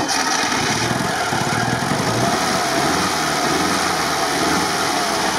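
UAZ off-roader's petrol engine caught and running steadily after being cranked; its engine-driven fuel pump has broken off, so fuel is being pumped by hand.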